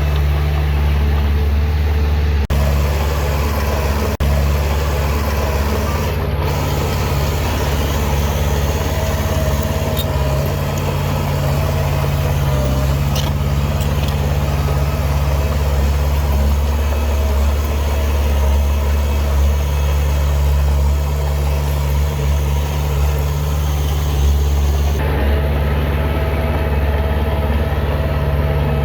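Heavy diesel engine of earthmoving machinery running steadily with a deep, constant drone, with a few brief clicks early on.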